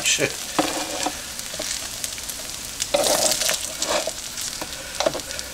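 Hash browns sizzling on a Farberware electric nonstick griddle while a plastic spatula scrapes them up off the surface, louder for a moment about three seconds in.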